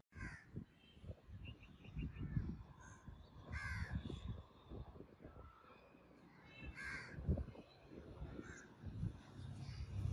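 A bird calling outdoors, about five harsh calls spaced a second or more apart, over a low rumble.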